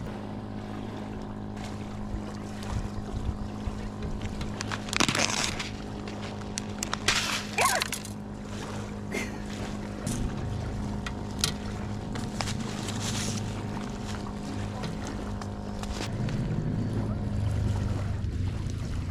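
A motor running steadily with a droning hum, with a few short, sharp noises about five seconds and seven to eight seconds in.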